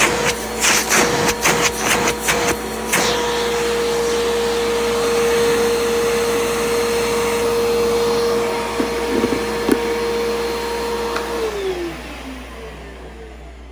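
Bissell PowerGroom bagless upright vacuum running with a steady motor whine, with quick rattling for the first three seconds. About eleven seconds in it is switched off and the whine falls away as the motor spins down.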